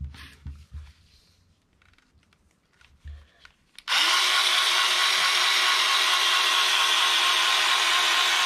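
Cordless electric scissors running, the battery motor driving the blade through a rag of fabric about an eighth of an inch thick: a loud, steady motor buzz that starts about four seconds in and holds even. It is preceded by a few light handling knocks.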